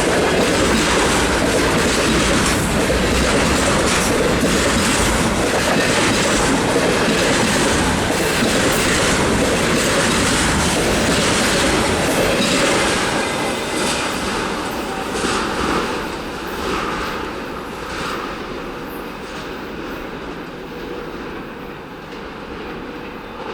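Freight train of container wagons rolling past, wheels running over rail joints in a steady clickety-clack with some wheel squeal. The sound stays loud for about the first half, then fades steadily as the train draws away.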